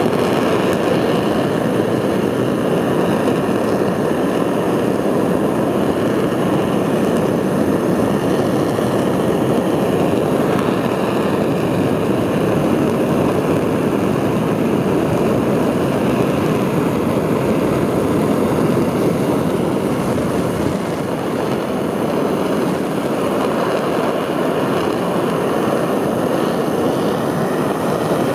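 Korean launch vehicle's 75-tonne-class kerosene and liquid-oxygen rocket engine firing on its test stand, a loud, steady roar that has just begun at ignition and holds without a break.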